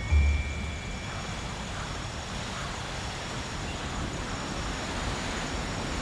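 Steady outdoor forest ambience: an even hiss over a low rumble, with a few faint, steady high tones. The tail of background music cuts off in the first second.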